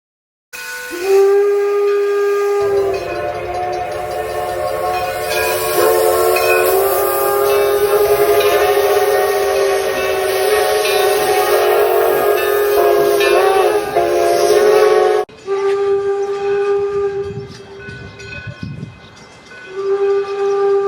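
Steam whistle of Detroit & Lima Northern No. 7, an 1897 Baldwin 4-4-0 steam locomotive, blowing a long, steady chord with a steam hiss. It cuts off abruptly about 15 seconds in, and the whistle tone comes back more quietly in shorter stretches near the end.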